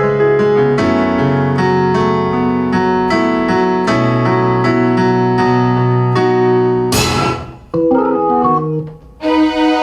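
Electronic keyboard playing repeated struck chords in a steady rhythm, then a bright noisy crash about seven seconds in, a few quick notes and a short break, and a held sustained chord near the end.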